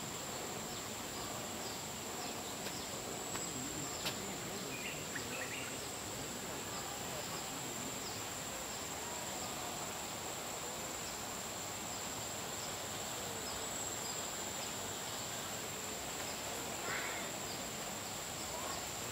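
Steady high-pitched insect drone over a low background hiss, with a couple of faint short chirps.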